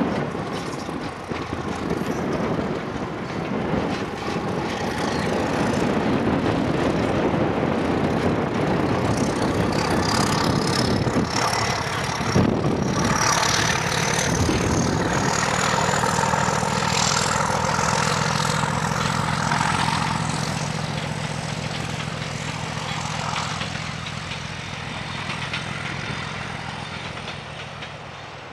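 A BR Class 31 diesel locomotive's English Electric 12SVT engine working hard as it hauls a passenger train past. The sound builds to its loudest through the middle and fades as the train draws away.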